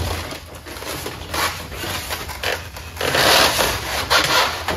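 Cardboard packaging crunching and scraping as a heavy metal tool cabinet is slid out of its box, growing louder about three seconds in.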